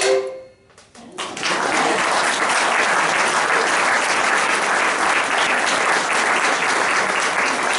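The last note of a song fades out, and about a second in an audience breaks into steady applause.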